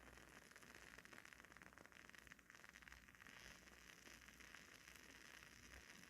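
Faint, steady crackling of a WoodWick candle's wooden wick as it burns, many small fast pops like a tiny wood fire.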